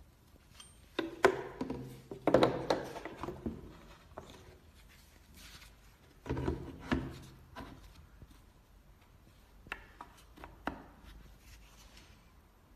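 Tools and parts being handled: knocks, clicks and rubbing in three clusters, about a second in, about six seconds in and about ten seconds in.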